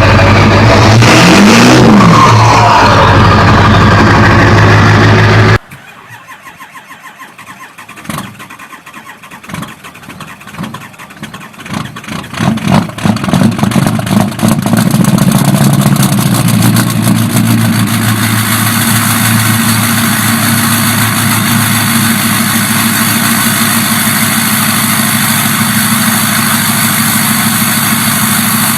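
Big engines being cold-started. A loud running engine cuts off abruptly in the first quarter. Then another engine turns over and fires unevenly, the firing building until it catches about halfway in and settles into a steady run.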